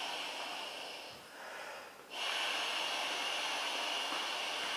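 A person blowing by mouth into an inflatable float tube's valve: a long steady hissing blow, a break of about a second to draw breath, then another long blow, a little louder.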